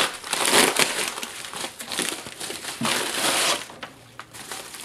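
Padded mailing envelope crinkling as it is pulled open and the contents drawn out: two loud spells of crinkling, one at the start and one about three seconds in, then quieter handling near the end.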